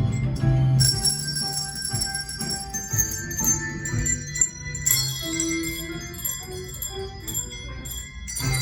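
A handbell choir playing a tune: clear bell notes struck one after another, several ringing on together.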